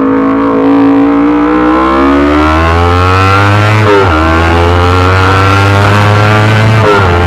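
Yamaha R25's parallel-twin engine through a Racefit Slash aftermarket exhaust. The revs rise over the first few seconds and are then held high, with two brief sharp drops in pitch about four and seven seconds in.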